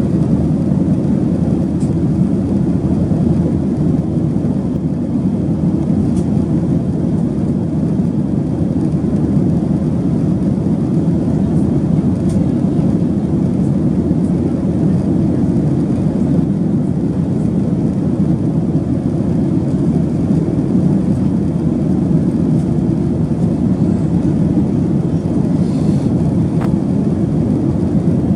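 Boeing 737-800 jet airliner heard from inside the cabin: a steady, low rushing noise of the CFM56 engines and airflow that does not change in level.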